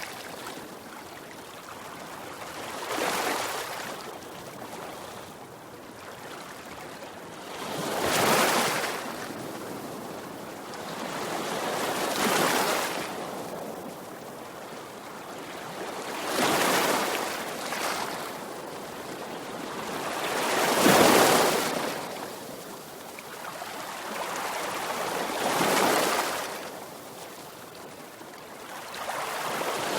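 Sea waves washing in one after another: a rushing hiss that swells and fades about every four seconds, the loudest surge about two-thirds of the way through.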